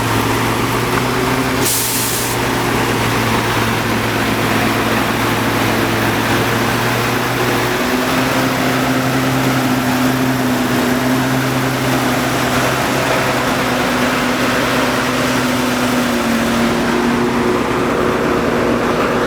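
Heavy construction vehicle engines running steadily, their pitch shifting slightly about eight seconds in, with a short hiss about two seconds in.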